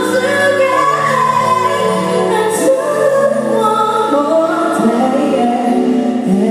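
Female lead singer singing sustained notes into a microphone, backed by a live band of drums, keyboard and bass guitar through the venue's PA.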